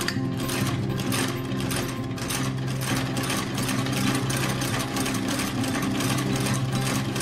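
Outsole stitching machine sewing a new leather sole to a boot's welt, with a regular clack on each stitch, a few stitches a second.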